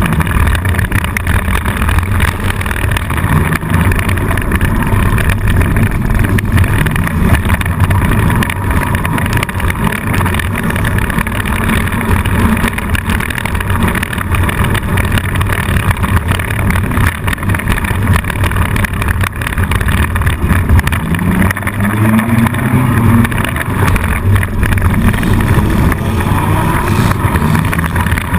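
Four-cylinder demolition derby car's engine running hard under throttle, heard from inside the stripped cabin, with the engine pitch swinging up and down a couple of times about three quarters of the way through.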